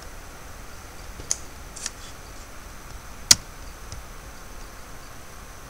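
A few computer mouse clicks over a steady background hiss: two soft clicks about a second and a half in, then one sharp, louder click about three seconds in and a faint one just after.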